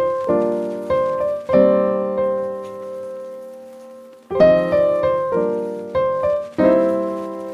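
Background piano music: chords struck about once a second, with one chord held and fading away for nearly three seconds in the middle before the playing picks up again.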